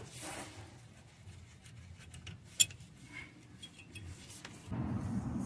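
Gloved hand working at an engine mount bracket, making faint scattered metal clicks and one sharp tick about two and a half seconds in; a low rustling noise comes in near the end.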